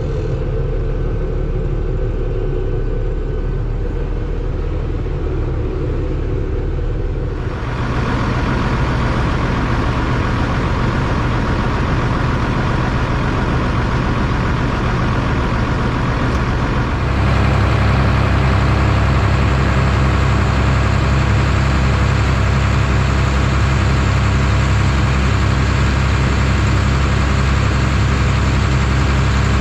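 Farm machine's engine running steadily, stepping up twice in speed or load: once about a quarter of the way in and again a little past halfway.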